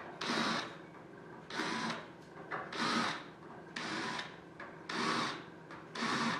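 Cordless drill spinning a deburring bit in short bursts, one per rivet hole, taking the burrs off pre-drilled holes in an aluminium wing skin: six bursts about a second apart.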